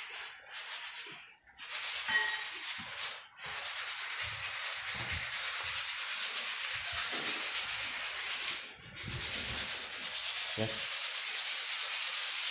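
Sandpaper being rubbed along a wooden handrail, a continuous scratchy hiss that breaks off briefly three times.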